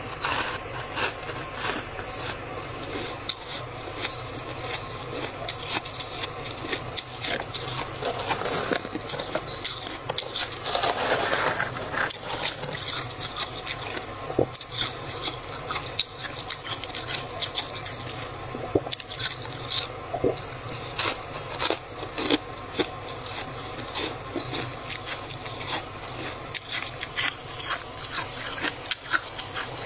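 Freezer frost crunching and crackling: many irregular sharp crunches over a steady high hiss.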